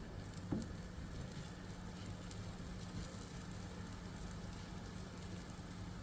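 Paratha frying in ghee on a hot tawa: a faint, steady sizzle with light crackles over a low hum. A small knock comes about half a second in.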